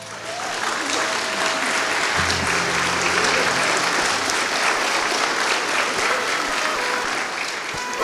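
Wedding congregation applauding steadily for the newlyweds' first kiss.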